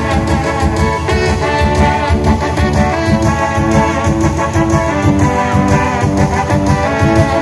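Loud live dance music from a band with a keyboard, played over PA speakers, with brass parts over a steady beat.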